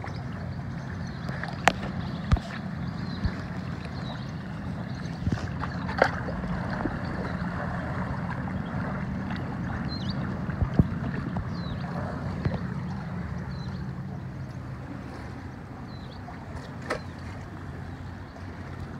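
An engine running steadily with a low drone, with a few sharp clicks scattered through it.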